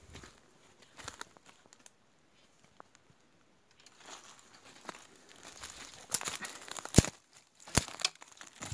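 Footsteps crunching through dry leaf litter and brushing past undergrowth, with a quiet pause a couple of seconds in. Near the end come two sharp snaps, the loudest sounds.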